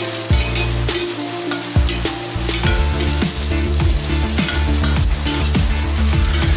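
Chopped onion and garlic sizzling in a stainless steel frying pan while a metal spatula stirs them, with repeated scrapes and taps of the spatula against the pan.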